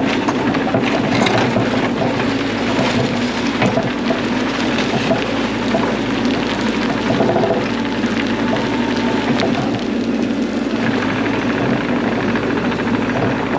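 Bobcat E42 mini excavator's diesel engine running steadily under load while it digs, with scattered knocks and clatter over the engine hum.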